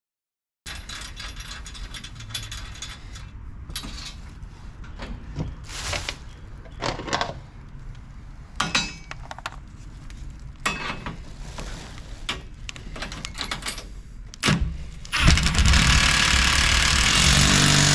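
Steel parts and hardware clinking and knocking as they are handled, then a power tool runs loud and steady for about three seconds near the end.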